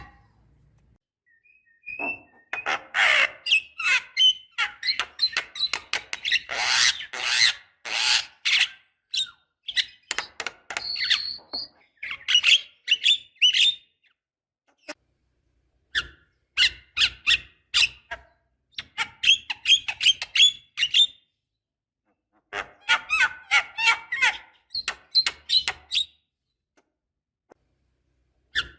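Javan myna calling in runs of rapid, harsh squawks and chattering notes, with short silent gaps between the runs.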